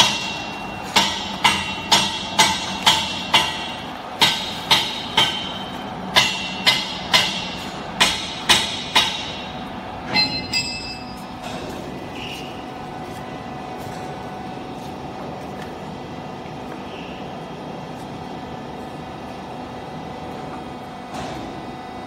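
Hammer blows on metal, each with a short ring, about two a second in runs of several strikes, stopping about ten seconds in. A steady workshop hum continues after the strikes stop.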